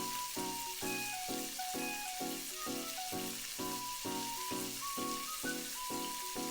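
Egg mixture sizzling in a hot oiled frying pan, with background music running over it in an even beat of about two notes a second.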